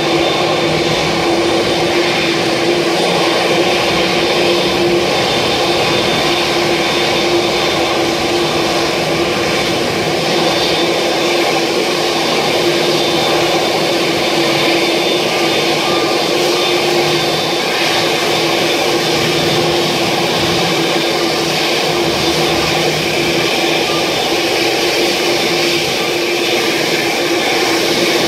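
Boeing 787-8's GEnx-1B turbofan engines running at idle as the airliner taxis in: a steady, even rush with a constant hum tone running through it.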